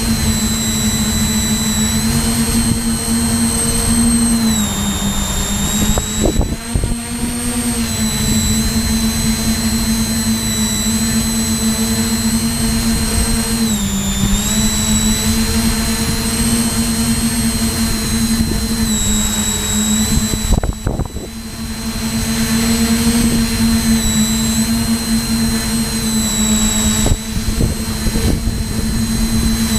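Tricopter's three motors and propellers running with a steady whine, the pitch dipping briefly several times as the throttle eases, and the sound falling away for a moment about two-thirds of the way through.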